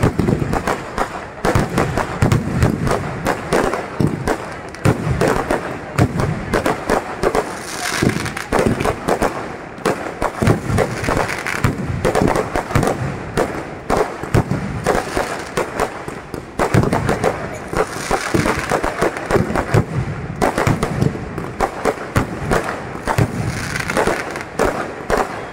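Aerial fireworks going off in quick succession: a dense, unbroken string of bangs and pops from bursting shells, many overlapping.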